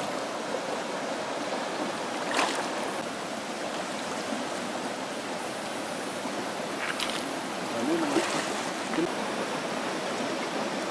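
Shallow rocky stream running steadily, with a few splashes as hands work in the water around a cast net, three of them standing out.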